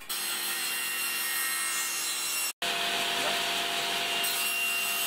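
Sliding table saw running steadily as it cuts through a wide softwood board. The sound drops out for an instant about halfway through.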